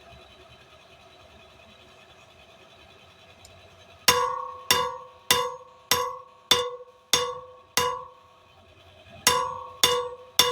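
Hand hammer striking 1/4-inch square steel stock on an anvil, upsetting the bar. The ringing blows start about four seconds in: seven at a steady beat of a little under two a second, a short pause, then three more.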